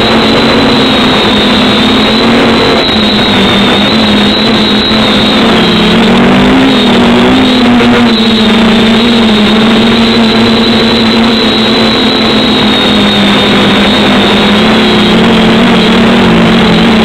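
MJX B6 Bugs 6 micro racing quadcopter's motors and propellers buzzing steadily, picked up by its own onboard camera, the pitch wavering slightly up and down as the throttle changes in flight.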